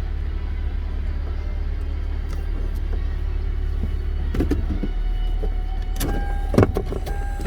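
Car driving, a steady low road rumble, with a few sharp knocks about four and a half and six and a half seconds in and a faint steady tone starting near the end.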